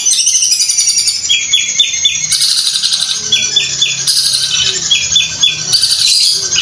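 Long-tailed shrike (cendet) singing a loud, continuous, rapid high chatter, like a sewing machine. About every two seconds the chatter is broken by a group of three short, lower notes.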